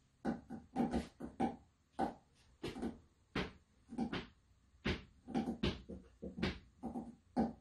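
A man's voice in a rapid run of short, speech-like syllables, about three a second, with no words that can be made out.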